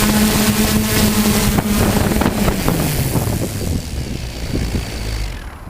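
DJI F450 quadcopter's motors and propellers humming steadily, heard through the onboard GoPro with wind noise. About two and a half seconds in, the pitch falls and the sound fades as the motors wind down.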